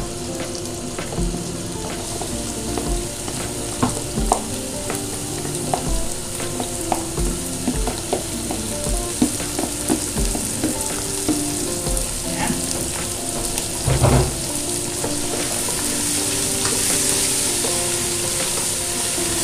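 Diced pork heart sizzling as it drops into hot oil with sautéed garlic and onion in an aluminium pot. A wooden spoon knocks and scrapes as it pushes the meat out of the bowl and stirs it. The sizzle grows louder near the end.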